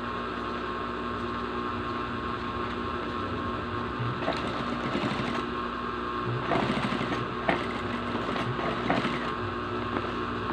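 Sewing machine running and stitching bias binding onto the edge of a thin plastic bottle sheet. The motor hums steadily, then grows louder and more uneven about halfway through, with a few sharp clicks.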